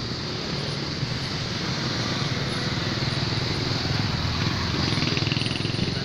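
Motorcycle engine running steadily at low speed in slow, congested street traffic, with road and wind noise around it.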